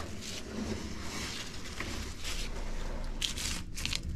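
Rustling and scraping of old papers and debris handled by gloved hands in an old ammunition box, in short irregular bursts over a low rumble.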